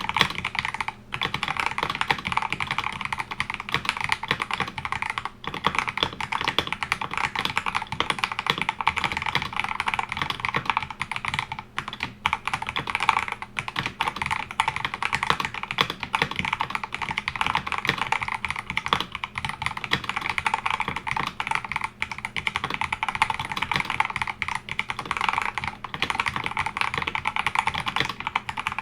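Continuous fast typing on an Akko 5075S mechanical keyboard with Akko Jelly White linear switches, lubed with Krytox 205g0, on a polycarbonate plate: a dense stream of keystroke clacks with a few brief pauses.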